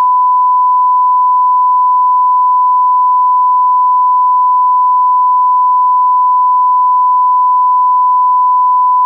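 Loud, steady 1 kHz reference tone, the line-up test tone that goes with SMPTE colour bars at the head of a tape or programme.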